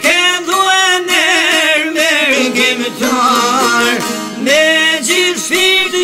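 Albanian folk song in the rapsodi style: a male voice sings a long, wavering, ornamented line over plucked string accompaniment.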